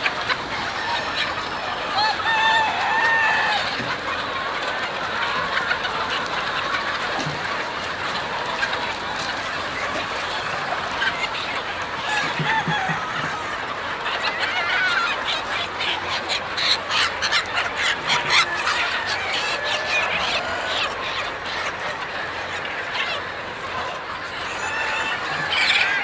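A large flock of chickens calling all at once, many overlapping calls making a steady din that grows busier and louder about halfway through.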